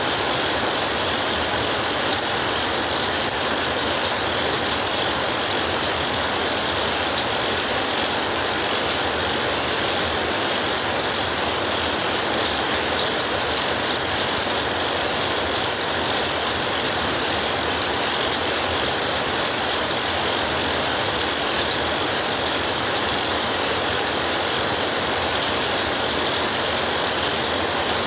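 Heavy rain falling steadily, a dense, even hiss with no rises or claps of thunder.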